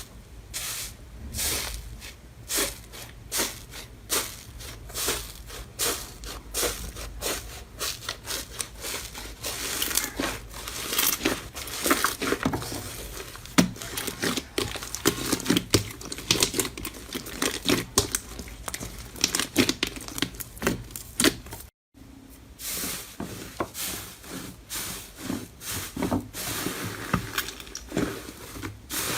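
Slime being squeezed and pressed, making dense crackling and popping clicks. The sound cuts out briefly about three-quarters of the way through, then the same crackling goes on.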